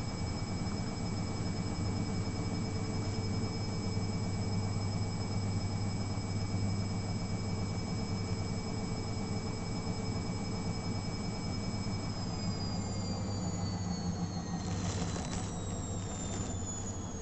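Atlant 60U1010 washing machine running in an intermediate spin: a steady hum with a high motor whine. About twelve seconds in, the whine starts falling in pitch as the drum slows, and a few clicks or knocks come near the end.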